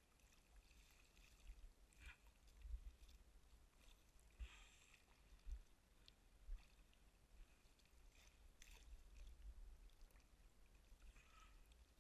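Near silence: faint water lapping and soft splashes from a small boat moving slowly across calm water, with a low rumble underneath.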